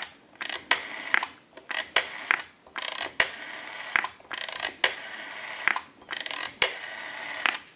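Rotary dial of an AT&T 323 candlestick telephone being dialed, digit after digit: each time a click as the dial is wound round by the finger, then the dial whirring and ticking back to rest as it sends its pulses.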